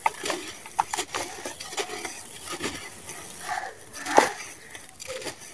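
Dry sand-cement chunks crushed and crumbled by hand: an irregular run of gritty crunches and cracks with grit pattering down. The loudest crack comes about four seconds in.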